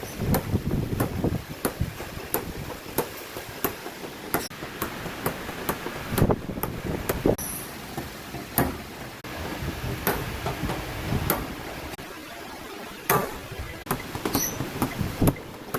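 A hammer tapping car body sheet metal in dent repair work: irregular sharp metallic taps and knocks, one to a few a second, over a low workshop rumble.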